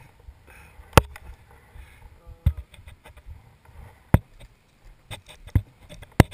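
About six sharp knocks and clicks against the action camera's housing as it is handled and bumped, the loudest about a second in and near the end, over a low rumble of wind on the microphone.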